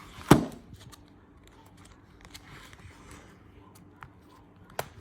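Cardboard box of dinner knives being handled: a loud knock about a third of a second in, then small clicks and rustles, and another sharp tap near the end.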